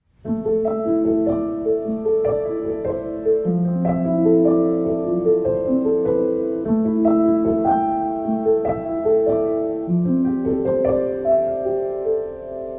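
Background music: a piano melody of struck notes that ring on, one after another.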